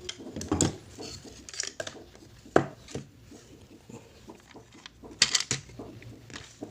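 Hands handling and fitting together the small parts of a nebulizer: irregular clicks, taps and rubbing, with a sharp knock about two and a half seconds in and a quick cluster of knocks around five seconds.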